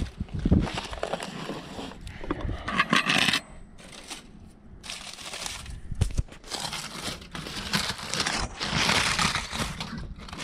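Aluminium foil crinkling and scraping in uneven bursts as a foil packet is handled and opened, with a few sharp clicks and a quieter stretch about four seconds in.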